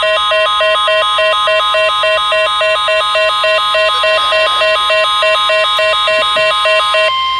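Weather radio alert: a Midland WR-300's pulsing alarm beeps rapidly over the steady 1050 Hz National Weather Service warning tone, announcing a new severe thunderstorm warning. The beeping stops about seven seconds in, and the steady tone runs on alone for a moment before cutting off.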